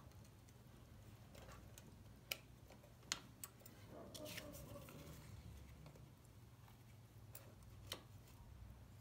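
Near silence with a few faint, scattered clicks and taps as a lawnmower carburetor and its parts are handled and fitted back onto the engine by hand.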